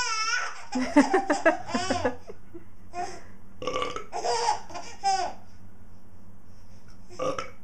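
A burp and a young boy laughing in high-pitched bursts, the laughter breaking out in several rounds with pauses between.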